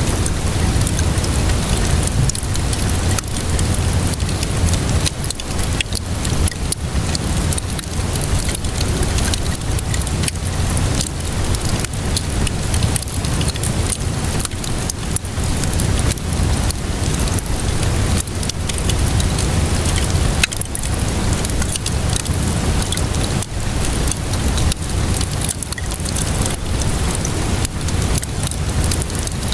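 Fireplace fire crackling with many short sharp pops, over the steady hiss of rainfall and a low rumble.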